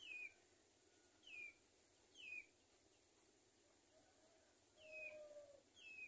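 A bird's short, falling chirps repeated about five times at uneven gaps, with a lower drawn-out note about five seconds in, over faint outdoor background.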